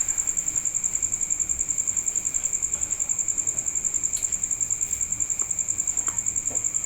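Cricket trilling: a high, steady trill pulsing about a dozen times a second.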